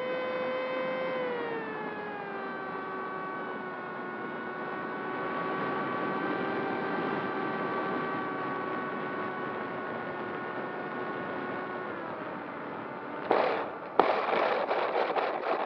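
Esky Eagles RC plane's electric motor and propeller whining steadily as heard from its onboard camera, the pitch dropping as the throttle is eased back about a second in and again near the end of the approach. About thirteen seconds in the plane touches down on grass with a loud knock, hits again a moment later, then rattles and scrapes as it skids to a stop through the grass.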